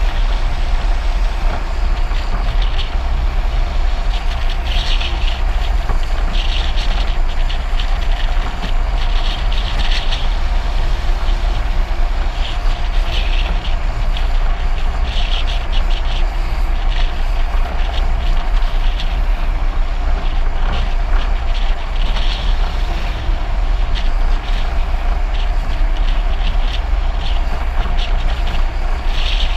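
Steady wind and road rumble on a camera riding on a follow car down a mountain road, with brief hissy surges every couple of seconds.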